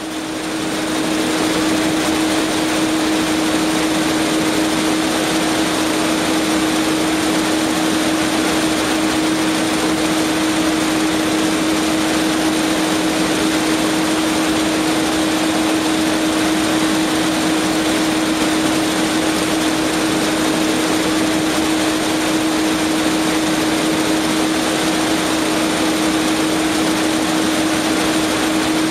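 Jakob Müller label looms weaving woven labels: a loud, steady mechanical clatter with a constant hum through it, fading up over the first second.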